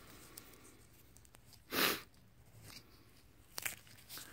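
Paper wrapper of a roll of half-dollar coins being peeled open by hand: faint crinkling and small ticks, with one short, loud burst of noise a little under two seconds in and a smaller one near the end.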